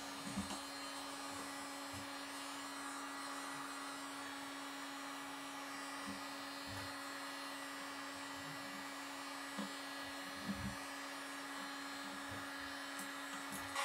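Heat gun blowing with a steady hum while a scraper lifts old vinyl decal off a wooden pinball cabinet, with a few soft knocks of the scraper against the wood.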